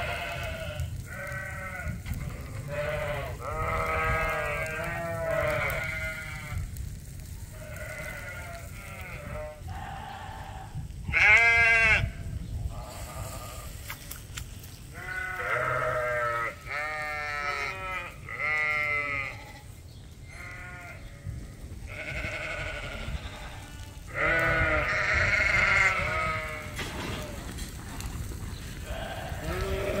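Suffolk and Dorset sheep bleating over and over, one wavering call after another, with the loudest, highest bleat about eleven seconds in.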